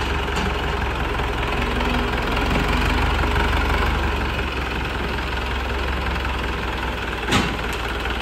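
A Hindustan tractor's diesel engine running steadily at low speed with a deep, even thrum. A short sharp knock sounds once, about seven seconds in.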